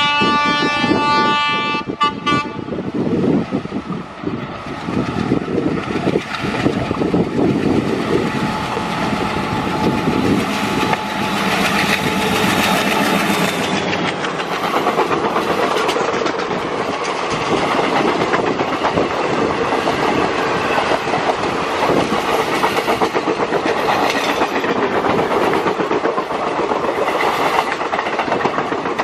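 WDM3D ALCo diesel-electric locomotive sounding its horn for about two and a half seconds at the start as it approaches, then passing at speed with its engine running. A long rake of passenger coaches follows, their wheels clattering rhythmically over the rail joints.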